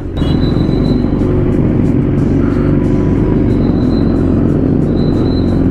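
Yamaha R6's inline-four engine running steadily at low revs in slow, jammed traffic, with the noise of other motorcycles and cars close around.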